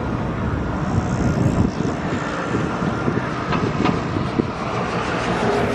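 Train running past on electrified track: a steady rumble of wheels on rail, with a few sharp clanks about three and a half seconds in.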